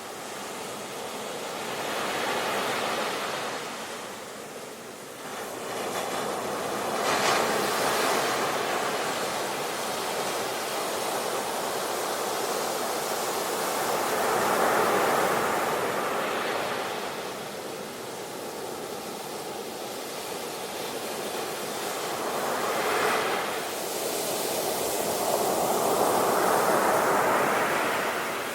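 Sea waves breaking and washing in, as a steady hiss of surf that swells and falls back about five times, every few seconds.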